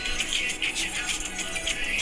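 Background music with a steady, quick beat of high, bright percussion.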